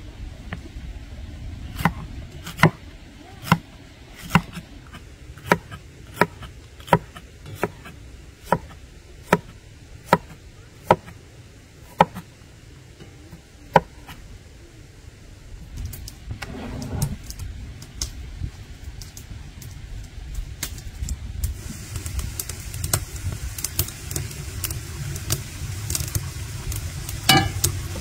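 A knife chopping on a cutting board, one sharp stroke about every second for roughly the first half. A few seconds later food starts sizzling in a hot pan, a steady hiss that runs on to the end.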